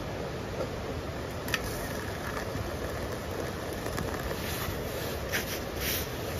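Hot water poured from a kettle into a stainless steel cup of instant coffee granules, over a steady rushing background, with a single sharp click about a second and a half in.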